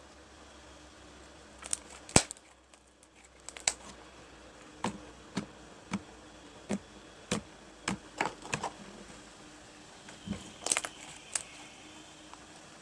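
Slime being pressed and poked by hand, giving a series of sharp clicks and pops: a few near the start, a run of about one every half second in the middle, and another cluster near the end.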